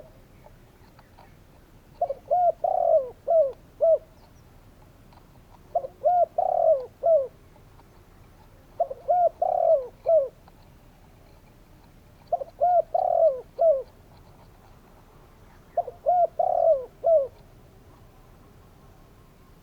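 Spotted dove calling: five phrases of four or five quick coos each, repeated about every three and a half seconds with short pauses between.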